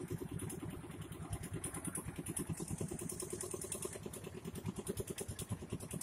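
Tractor engine running at low revs with a fast, even chugging beat.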